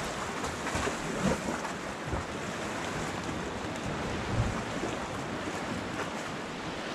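Sea water washing and lapping against shoreline rocks, with wind noise on the microphone.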